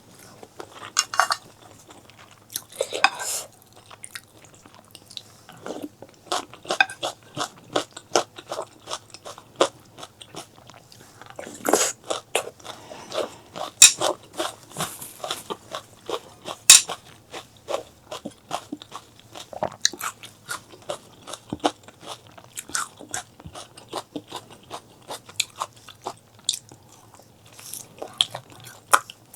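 Close-miked eating sounds: steady chewing with many short, crisp crunching clicks, a few more every second.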